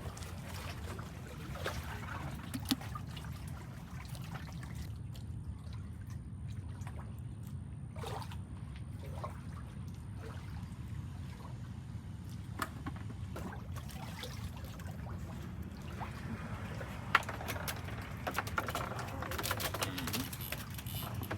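Water trickling and lapping over a steady low rumble, with a few light knocks and clicks.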